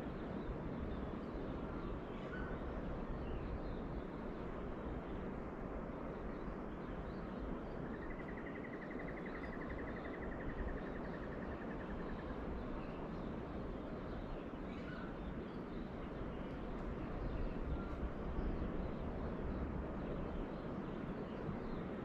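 Steady wash of ocean surf with faint bird calls: a few short chirps, and about eight seconds in a rapid, even trill that lasts about three seconds.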